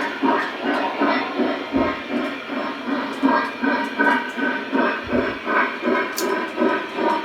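Lionel Visionline Commodore Vanderbilt O-scale model steam locomotive running, its onboard sound system playing a steady rhythmic steam chuff at about three beats a second. A sharp click about six seconds in.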